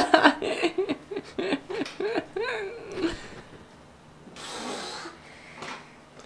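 A person laughing in a run of short rising-and-falling bursts, about three a second, then falling quiet; a brief soft rustle follows about four seconds in.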